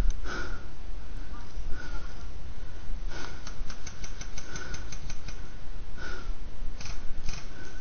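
Footsteps on a forest floor of needles and twigs, with clothing and kit rustling against a body-worn camera and a low rumble on the microphone; a run of small clicks comes about halfway through.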